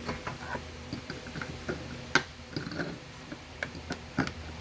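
Irregular small clicks and taps of plastic MC4 solar connectors and cables being handled, with two sharper clicks, about two seconds in and again near the end.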